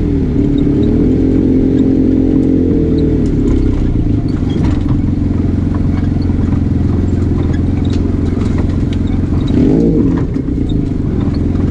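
Arctic Cat Wildcat Trail 700 side-by-side's engine running under way. Its pitch swings up and down with the throttle in the first few seconds and again near the end, with scattered clicks and rattles over the steady drone.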